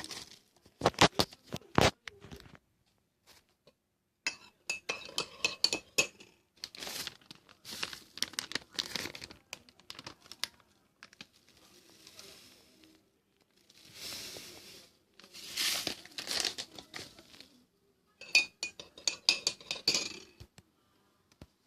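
Plastic wrapper crinkling and tearing in several separate spells, with a few light clicks and clinks.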